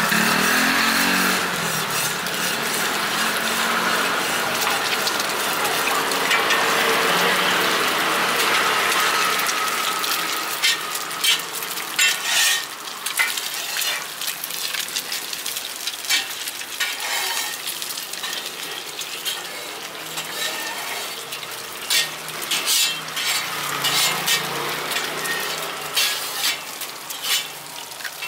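Shallot bread dough deep-frying in a wide pan of hot oil: a steady sizzle. From about ten seconds in, scattered sharp clicks of cooking tools against the pan.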